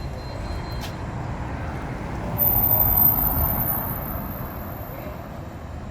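A motor vehicle passing close on the street: its low rumble swells to a peak about three seconds in, then fades away.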